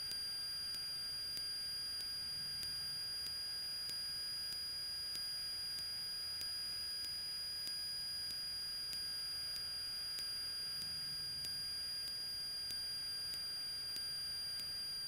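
Steady electrical hiss and a few thin, steady high-pitched whines on the aircraft's intercom audio feed, with a faint tick about every two-thirds of a second. This is the noise floor of the audio line between transmissions.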